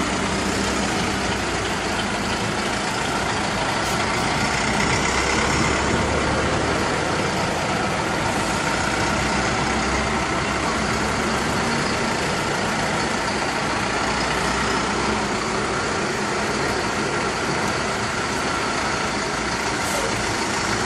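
Engines of compactor garbage trucks running as the trucks drive slowly past one after another, a steady engine sound with no break.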